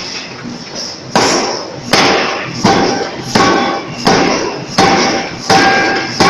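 C41-2000 kg pneumatic forging hammer striking a glowing round steel billet. After a quieter first second, heavy blows land about every three-quarters of a second, each leaving a brief metallic ring.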